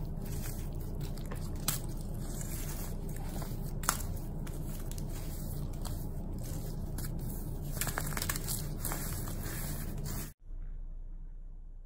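Dry, powdery clay lumps crushed and crumbled between bare hands: steady gritty crunching with a few sharper cracks. It cuts off abruptly near the end, leaving a much quieter stretch.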